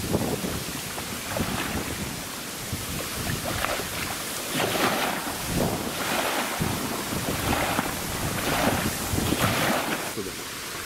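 Strong wind buffeting the microphone over choppy river water, with small waves washing against the shore in repeated surges.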